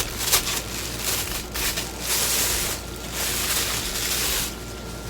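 Plastic packaging rustling and crinkling in irregular bursts as it is handled, quieter near the end.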